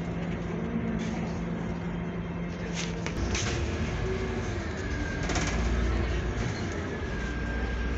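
Cabin noise inside a moving Scania Citywide CNG city bus: engine and drivetrain drone with road rumble. The low drone deepens and grows louder about three seconds in, with a few short rattles. A faint high whine sets in near the middle.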